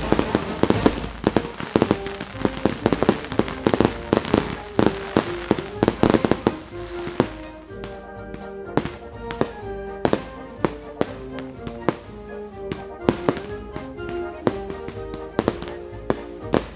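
Fireworks going off in a rapid run of bangs and crackles over music for about the first half, then stopping. Music with a melody and a steady beat carries on after that.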